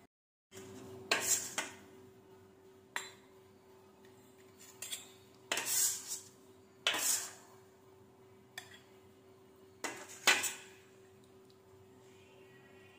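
Stainless-steel bowls and utensils clinking and knocking against a steel thali as the dishes are set down and arranged. There are a series of separate clinks, some ringing briefly, with the loudest about ten seconds in, over a faint steady hum.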